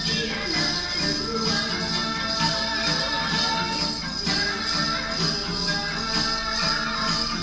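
Music for a mountain dance, with a steady beat and jingling percussion like a tambourine.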